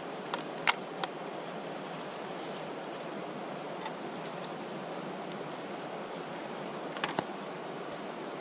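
Steady rush of flowing river water, with a few sharp clicks about a second in and again near the end.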